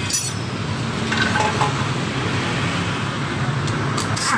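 A steady low mechanical hum, with a few short metallic clinks of tools on metal parts: one at the start, a couple about a second in, and two near the end.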